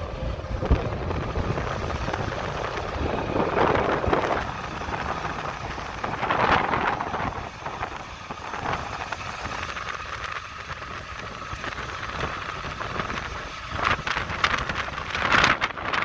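Riding in a moving auto-rickshaw: its engine and road noise run steadily, with wind buffeting the microphone and swelling louder a few times.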